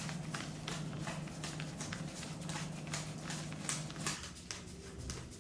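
Paper banknotes counted by hand with gloved fingers: a quick, irregular run of crisp flicks as a stack of $100 bills is thumbed through, thinning out near the end. A low steady hum runs underneath until about four seconds in.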